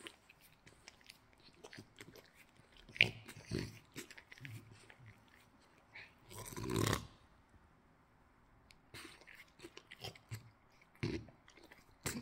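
French bulldog snuffling and smacking its mouth close up: scattered small wet clicks, a sharp click about three seconds in, and a longer breathy snuffle just over halfway through.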